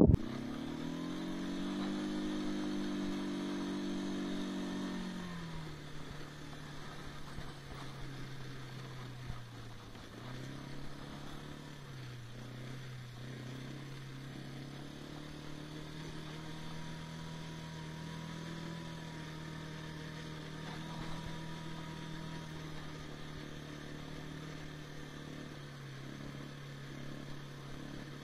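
ATV engine running under way: it revs up about half a second in, holds the higher revs for a few seconds, then drops back to a steady lower speed, with a couple of brief dips in pitch later on.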